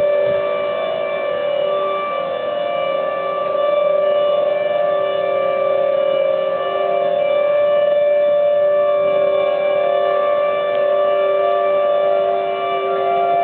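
Outdoor civil-defense warning sirens sounding a steady tone, several overlapping at different pitches, their loudness slowly swelling and easing. They are sounding for a severe thunderstorm warning.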